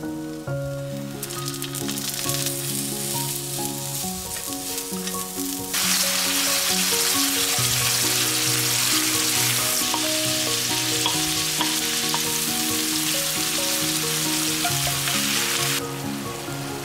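Thinly sliced pork belly and green onion sizzling loudly in a hot frying pan as they are stirred with chopsticks. The sizzle starts suddenly about six seconds in and cuts off near the end, over background music with a steady melody.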